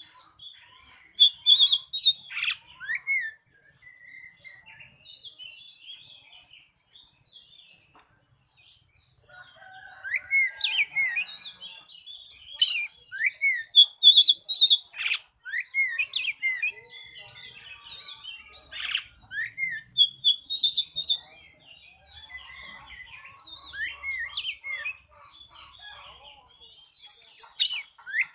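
Oriental magpie-robin (kacer) singing a varied song of whistled phrases, rapid chirps and quick rising notes, in bursts, with a quieter spell a few seconds in.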